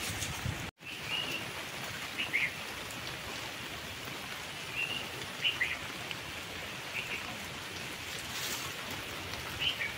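Heavy rain falling steadily, with a bird giving short chirps every second or two. The sound drops out for an instant just under a second in.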